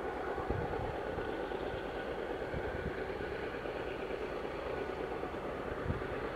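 Diesel engines of BNSF GE road locomotives heading a grain train, running with a steady drone made of several held tones.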